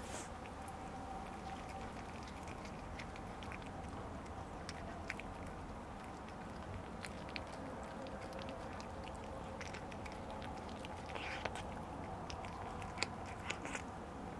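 A cat eating close to the microphone: irregular chewing with many short clicks, a few louder ones near the end.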